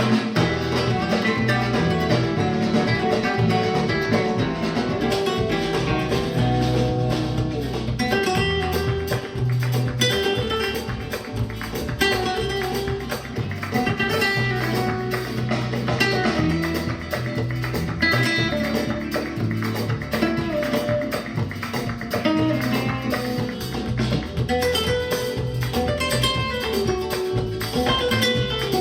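Flamenco-style music led by plucked acoustic guitar over a steady bass pulse, played back through an active desktop speaker and recorded at the listening position.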